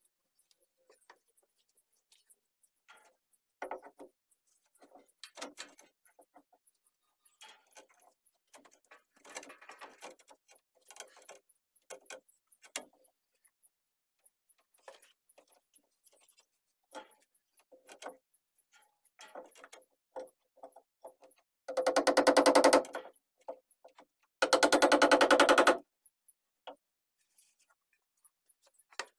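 Scattered light knocks and clicks, then a small power tool running in two short bursts of about a second each, a fast even rattle, in the last third.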